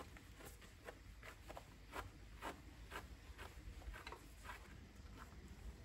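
Faint, quick strokes of a grooming brush swept over a pony's coat, about two or three a second.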